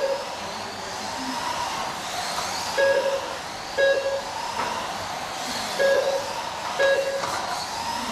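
Electric motors of mini RC trucks whining as the cars lap the track, the pitch rising and falling as they pass. Short electronic beeps from the lap-counting system mark cars crossing the line, in pairs about a second apart, roughly every three seconds.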